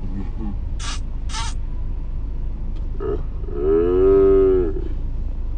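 Steady low road rumble inside a moving car, with two short hisses about a second in and one drawn-out voiced call, held for about a second, a little before the end.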